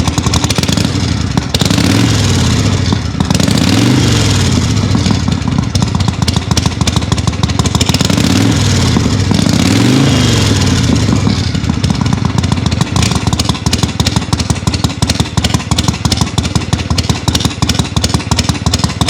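Harley-Davidson Shovelhead V-twin idling through its original exhaust, with the throttle blipped twice so the revs rise and fall, about two seconds in and again about eight seconds in.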